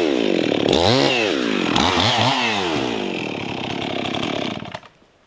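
Two-stroke gas chainsaw revved up and down several times, then dropping in speed and shutting off near the end.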